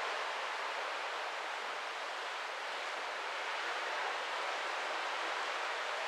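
Steady, even rushing noise of sea water and wind streaming past a large cruise ship under way, with no distinct events.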